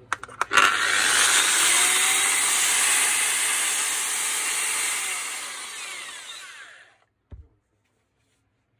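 Makita GA9010C angle grinder with a bare spindle, switched on with a click and free-running at full speed with no load. About three seconds in it starts to wind down, falling in pitch until it stops about seven seconds in. This is a test run of the freshly reassembled gearbox. A single knock follows.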